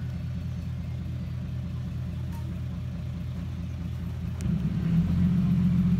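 Six-wheel dump truck's diesel engine running at a low, steady rumble as the truck reverses slowly, then revving louder about four and a half seconds in.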